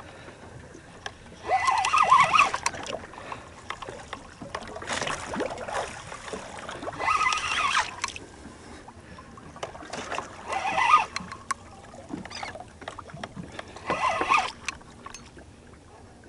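Water sloshing and splashing against the side of a small fishing boat while a fish is fought on a rod and reel, broken by about five short, pitched bursts of sound.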